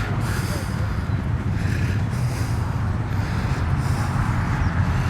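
A motor vehicle's engine running steadily, a low even drone with road or wind noise over it.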